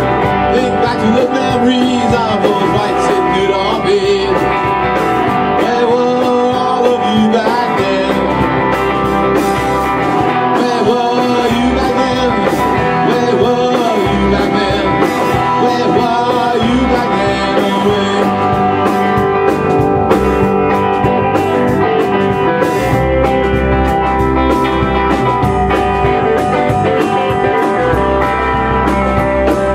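A rock band playing live: two electric guitars, an electric bass and a drum kit, with a steady beat.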